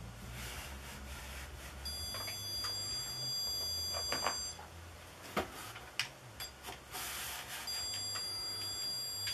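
Electronic stud finder being swept across a ceiling, giving two steady high-pitched beeps: one about two and a half seconds long starting about two seconds in, and one about a second and a half long near the end. The tone signals that the finder senses a stud. A few light clicks come between the beeps.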